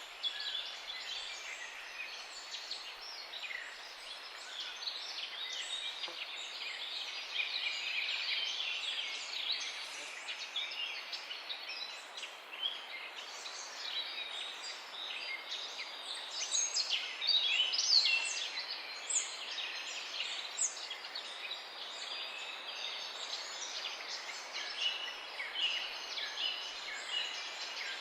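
Chorus of many songbirds chirping, trilling and singing over one another without pause, over a soft steady hiss. A few louder calls stand out partway through.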